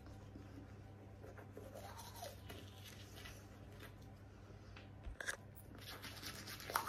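Manual toothbrush scrubbing teeth close to the microphone: faint, scratchy bristle strokes, with a sharp click about five seconds in.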